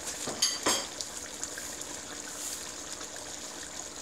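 Chicken adobo sauce simmering in an aluminium pot, a steady bubbling hiss. Two sharp knocks come in quick succession under a second in.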